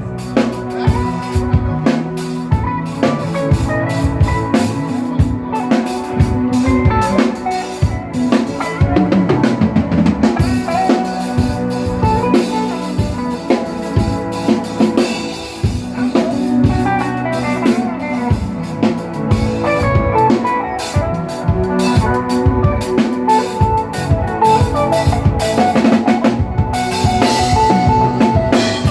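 A band playing, with the drum kit prominent: steady kick and snare hits over bass and other pitched instruments.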